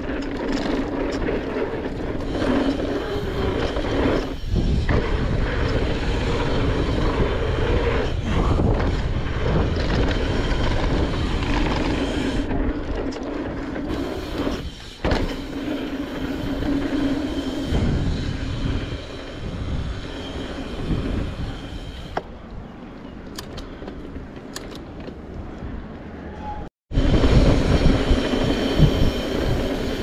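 Mountain bike riding along a rough dirt trail: a steady, rattling rumble of tyres over the ground and the bike's parts shaking. It drops out for an instant near the end and comes back louder.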